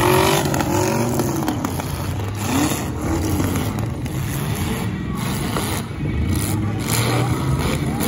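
Demolition derby cars' engines revving hard in short bursts, the pitch swinging up and down, over the steady rumble of several engines running at once.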